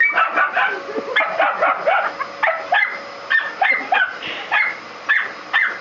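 A dog barking rapidly at a running vacuum cleaner: sharp, high-pitched yapping barks, about three or four a second, over the vacuum motor's steady hiss.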